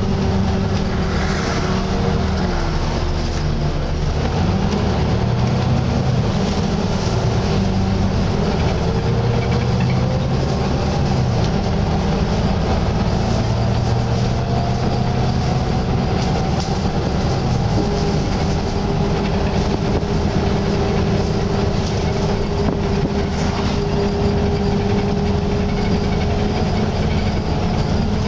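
Volvo B9TL double-decker bus under way, heard from inside the saloon: its engine running with the cooling fan's steady hoover-like whine over the top, one whine drifting up in pitch midway.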